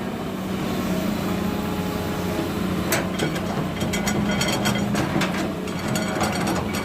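Diesel engine of heavy earthmoving machinery running steadily. From about three seconds in come a series of sharp metallic clanks and squeaks.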